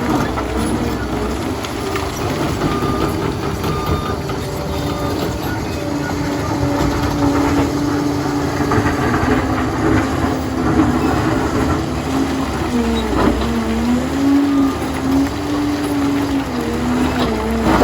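Liebherr PR 746 crawler dozer working: its diesel engine runs steadily and its steel tracks clatter. A wavering melodic line rises and falls over the machine noise.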